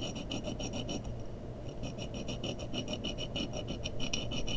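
A watch pinion held in a collet being rubbed back and forth on a 400-grit diamond plate, a quick run of rasping strokes about five or six a second with a short pause about a second in. It is grinding excess material off the end of the pinion.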